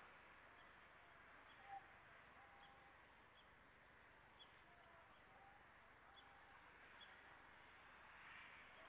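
Near silence: a faint steady hiss, with a few faint, short chirps scattered through.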